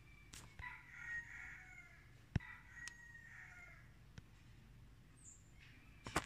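Rooster crowing for about three seconds in two drawn-out parts, with a sharp click in the middle and more clicks near the end.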